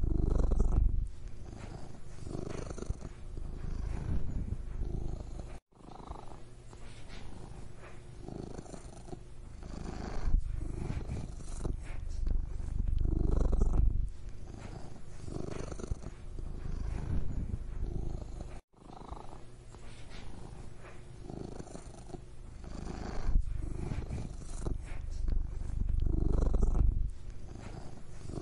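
Domestic cat purring close up: a low, steady rumble that swells and fades every few seconds with its breathing. It cuts out for an instant twice.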